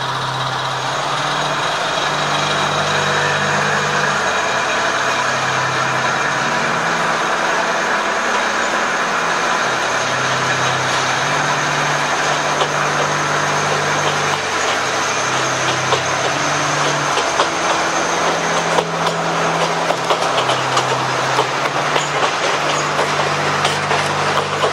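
Kominato Railway KiHa 200 diesel railcar running, heard from on board by the open side window: a steady diesel engine note that steps up and down in pitch. From about three-quarters of the way through, the wheels click over rail joints.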